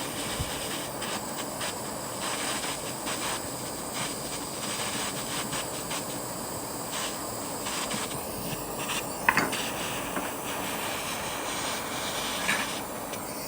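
Soldering torch flame hissing steadily, with a few short clicks.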